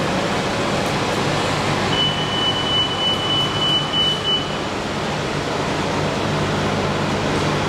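Steady noise of idling buses with a low engine hum. A high, steady tone, slightly broken up, sounds for about two and a half seconds starting about two seconds in.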